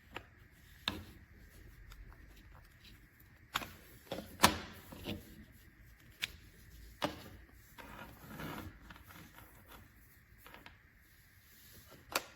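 Handling noise: irregular light clicks and knocks with some rustling, as objects are picked up and moved about, the sharpest knock about four and a half seconds in.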